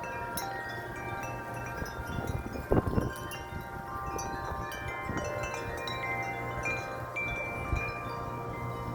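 Wind chimes ringing steadily in strong wind, many tones struck over and over and overlapping as they ring on. A brief low thump comes about three seconds in.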